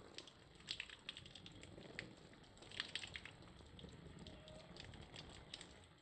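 Faint water dripping: scattered, irregular small ticks and pats of drops, bunched in a few quick clusters.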